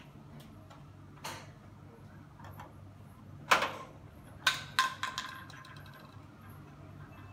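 Hollow plastic bottles knocking and clattering: a light knock about a second in, a sharp loud knock about three and a half seconds in, then a quick run of rattling knocks with a brief ring a second later, as a small plastic bottle drops onto a hard tiled floor and bounces. A faint steady hum lies underneath.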